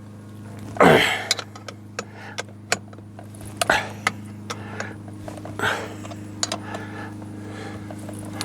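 Metal hand tools clinking and clanking against a steering wheel puller, with a loud clank about a second in and scattered sharp clicks after it, over a steady low hum.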